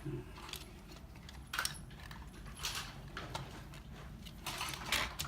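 Plastic parts of an opened PS4 controller being handled and lifted by hand: scattered light clicks and short scrapes, with the longer, louder scraping about halfway through and near the end.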